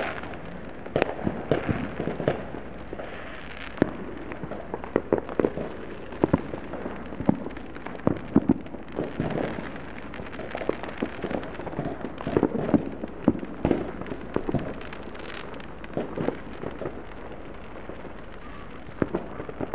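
Distant fireworks going off all over a town below: an irregular scatter of bangs and pops, bunched in clusters and never stopping for long.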